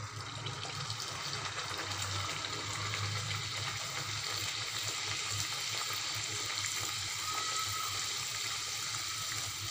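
Poori deep-frying in hot oil in a kadai: a steady sizzle that builds up at the start as the dough settles into the oil, then holds level.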